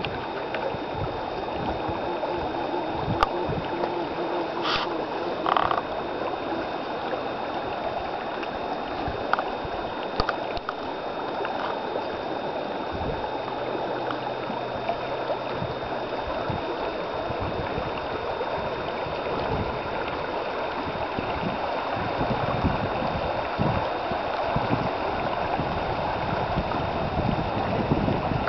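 Steady rushing of a shallow, fast-flowing creek, with low wind rumble on the microphone.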